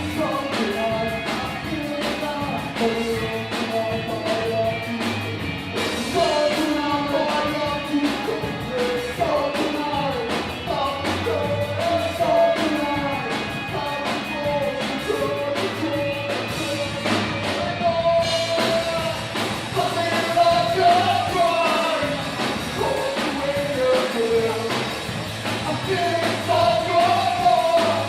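Rock band playing a song with a lead vocalist singing over it.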